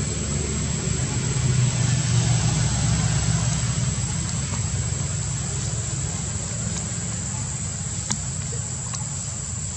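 Steady low rumble like a motor running, swelling a little about two seconds in, under a constant thin high-pitched drone. Two faint clicks come near the end.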